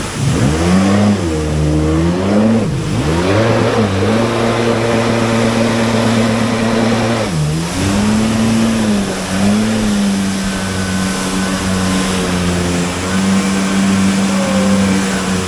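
Yamaha personal watercraft's engine running at speed. Its pitch dips and climbs back a few times in the first half as the throttle is eased and reopened, then holds fairly steady, over the rush of water spray and wind.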